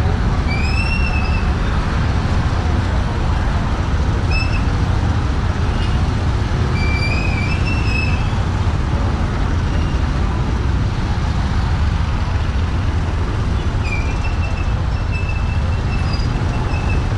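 Steady low rumble of street traffic, with short high chirps now and then.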